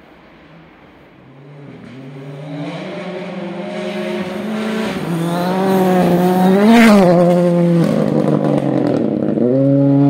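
A rally car's engine at full throttle, approaching and passing close on a gravel stage. It grows steadily louder, and its pitch climbs and then drops back several times as it changes gear.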